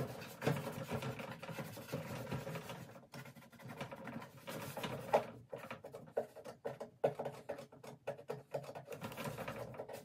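Hand scrubbing the inside of a vanity drawer with a cloth, repeated rubbing strokes, to clean off a dried spill.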